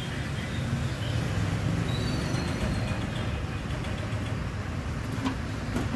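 Steady low background rumble with no distinct knocks or clicks.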